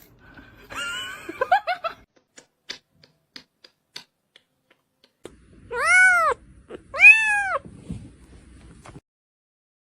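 A domestic cat meowing: two drawn-out meows about a second apart, each rising then falling in pitch, after some shorter squeaky sounds and a few faint clicks.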